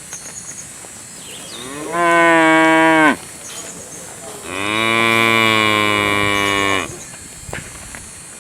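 A cow mooing twice: a call of about a second, then a longer, steady moo of about two and a half seconds.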